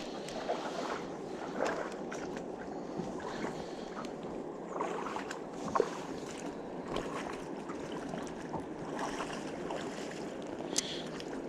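Steady sound of river water lapping and gurgling, with a few faint small knocks.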